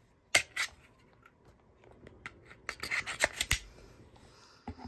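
Hands rummaging through pistol packaging to get out a magazine: plastic rubbing and scraping with sharp clicks, two early on and a quick cluster about three seconds in.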